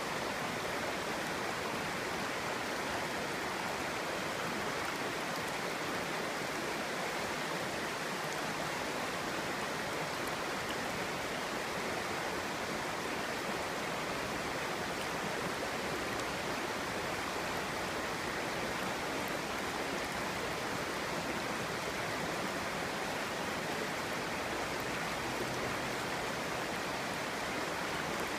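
Clear, shallow stream babbling and rushing over stones: a steady, even water sound.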